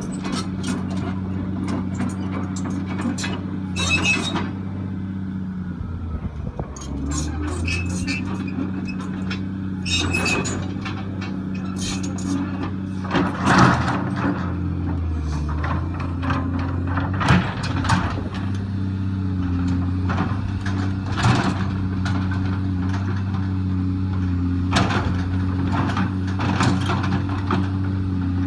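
Volvo excavator's diesel engine running steadily, its pitch dipping briefly about six seconds in and again around fifteen seconds. Sharp knocks and clanks come at intervals, the loudest about halfway through.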